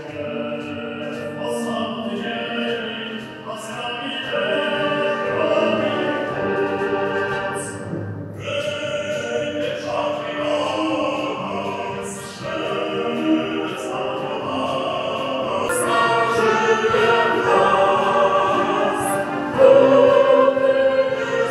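A military concert band with clarinets and brass accompanying vocalists singing a Polish patriotic wartime song, male voices leading with a woman's voice joining near the end; the music swells louder near the end.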